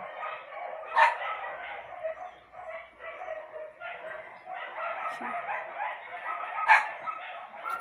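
Dog barking and yapping repeatedly, with two sharper, louder barks, one about a second in and one near the end.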